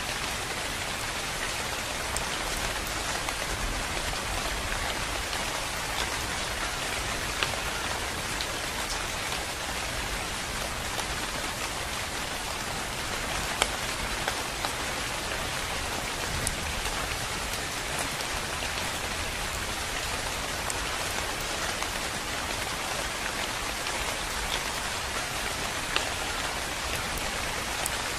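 Steady rain, an even hiss, with now and then a single louder drop ticking close by.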